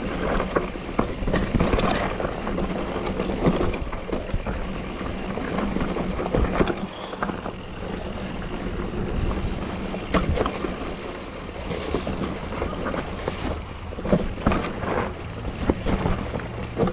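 Mountain bike riding down a dirt singletrack: tyres rolling over dirt with frequent clattering knocks and rattles from the bike over bumps, under steady wind rush on the microphone.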